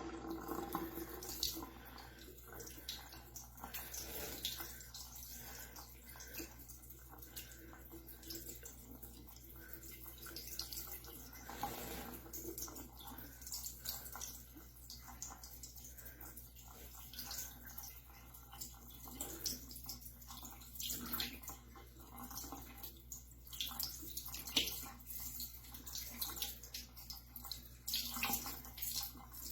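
Running water splashing into a cupped hand as a budgie bathes in it, with irregular small splashes and drips throughout.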